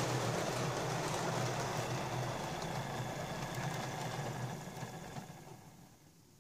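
Lima model Class 20 locomotive's electric motor whirring and its wheels running on the track. The sound fades over the last couple of seconds as the locomotive slows to a stop.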